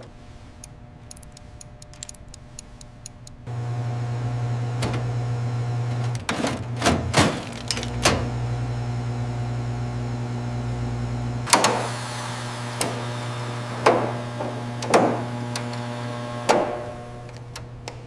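Refrigerator compressor motor running under test: a steady electrical hum comes on about three and a half seconds in and holds. Scattered clicks and clunks sound over it.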